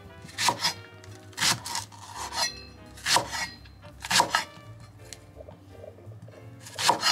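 Chef's knife slicing diagonally through a Japanese long green onion (negi) and onto a wooden cutting board: about six crisp cuts roughly a second apart, with a pause of about two seconds before a last cut near the end. Soft background music underneath.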